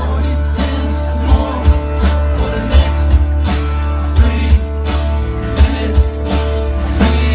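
A live band playing a song: guitar over sustained bass, with a regular drum beat.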